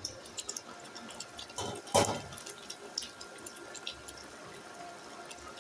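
A thick coconut-milk sauce simmering in an open pan, with small bubbling pops and ticks throughout. A single louder knock comes about two seconds in.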